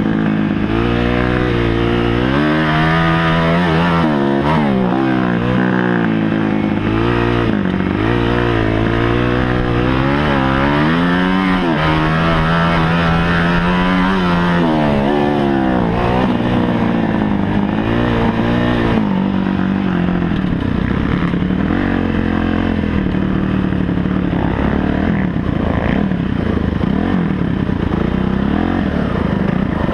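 Kawasaki KX250F four-stroke single-cylinder motocross engine under way, its revs rising and falling again and again as the rider throttles on and off and shifts through the gears. About two-thirds of the way through the revs settle lower and steadier.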